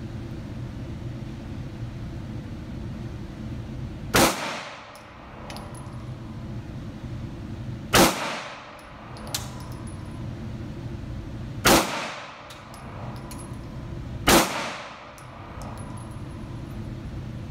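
Four handgun shots, about three to four seconds apart, each ringing briefly in the enclosed indoor range, over a steady low hum.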